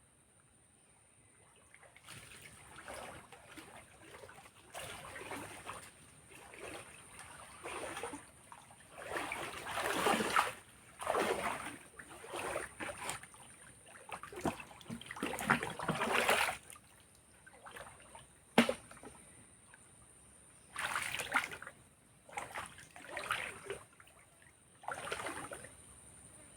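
Water splashing and sloshing in irregular bursts, some louder than others, with a faint steady high-pitched whine behind.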